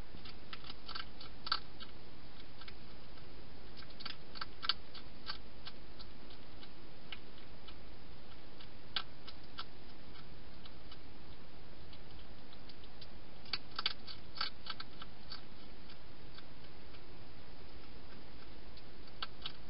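A wild hedgehog eating inside a plastic feeding box: short clusters of crunching clicks every few seconds over a steady hiss.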